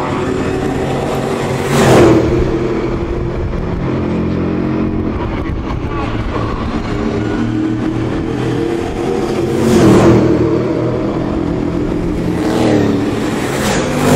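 Late Model V8 stock cars' V8 engines racing round the oval. Cars pass by loudly about two seconds in and about ten seconds in, then a pack goes by near the end, each pass falling in pitch as it goes past.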